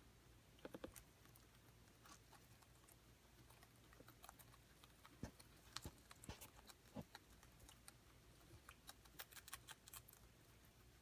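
Guinea pigs eating cucumber and greens: faint, irregular crunching clicks that come in scattered clusters.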